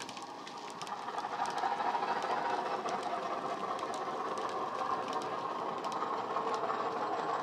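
Hornby Class 50 model locomotive's DCC sound decoder playing a Class 50 diesel engine sound through its small speaker. The sound is steady and gets a little louder about a second and a half in. Faint clicks from the model wagons' wheels on the track come and go.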